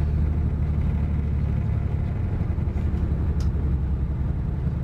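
Steady low rumble of an Avanti West Coast diesel passenger train running at speed, heard from inside the carriage.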